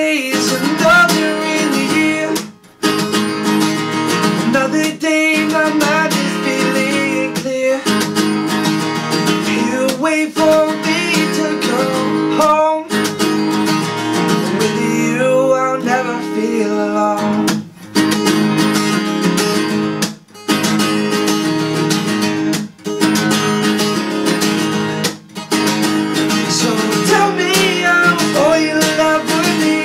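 Acoustic guitar strummed in a steady rhythm with a man singing over it. The strumming stops briefly a few times.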